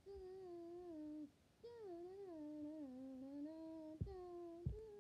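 A boy humming in three long, wavering phrases, the pitch sliding slowly up and down and sagging at the ends of the notes. Two dull thumps near the end.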